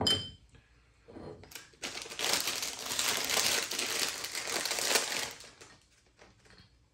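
Plastic bag of carbonation drops crinkling as it is handled for about three seconds in the middle, after a brief glassy clink at the start as a bottle is set down.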